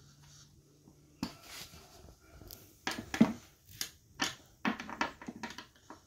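Hex key knocking and clicking against a bolt and the metal mounting plate of an office chair's seat mechanism as it is worked in the bolt, a run of irregular sharp clicks that come faster toward the end.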